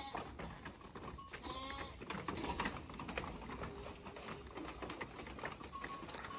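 A ewe bleats once about one and a half seconds in, over a run of light clicks and knocks of hooves on a plastic slatted ramp as the sheep climb into the shed.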